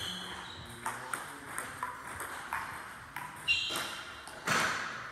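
Table tennis ball clicking off rackets and the table in a rally, a sharp hit every half second or so, ringing briefly in the sports hall. The loudest hit comes about four and a half seconds in.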